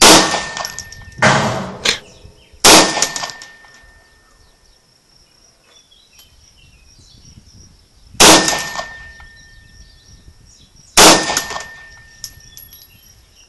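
9mm Ruger P95 pistol fired five times: three quick shots, a pause of about five seconds, then two more spaced about three seconds apart. Each shot is followed by a brief high metallic ring.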